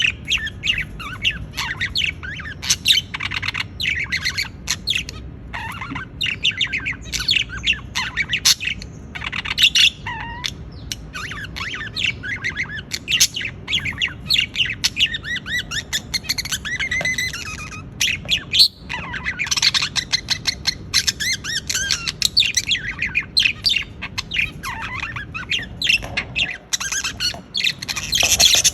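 Budgerigars chirping, warbling and squawking continuously, many short calls overlapping, over a low steady hum.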